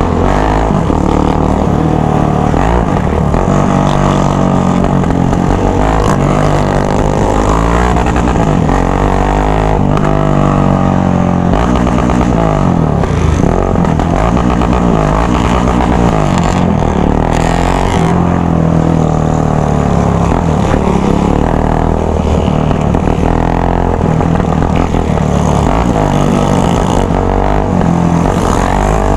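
Yamaha XT trail bike with a straight-piped open exhaust running loud under the rider, amid a pack of other motorcycles. Several engine notes overlap, rising and falling with repeated revving throughout.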